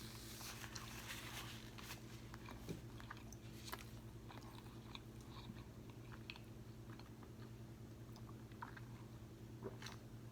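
A person chewing a crispy fried fish sandwich close to the microphone: faint scattered small crunches and clicks, a few louder ones near the end, over a low steady hum.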